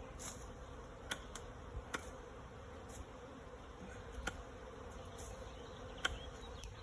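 A swarm of honeybees buzzing in a steady, faint hum, with a few short sharp clicks scattered through it.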